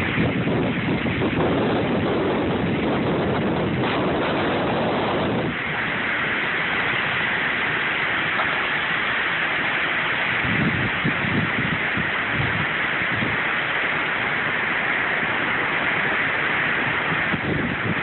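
Thunderstorm downpour: heavy rain hissing steadily while strong wind gusts buffet the microphone. The low buffeting is heaviest in the first five seconds, then mostly the rain's hiss remains, with a few more gusts about ten seconds in.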